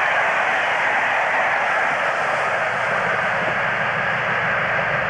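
Passenger coaches behind an English Electric Class 50 diesel rushing past at speed: a steady rush of wheel-on-rail noise, with a low rumble underneath.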